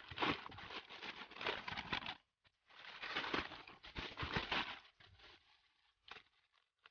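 Plastic courier satchel being cut open with scissors and handled, crinkling and rustling in two bursts as a bubble-wrapped package is pulled out. A short snip about six seconds in as the scissors cut into the bubble wrap.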